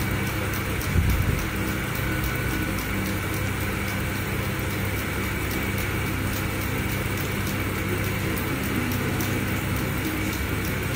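Automatic friction feeder and conveyor belt running, dispensing face masks one at a time: a steady motor hum with rapid, even ticking, and a brief knock about a second in.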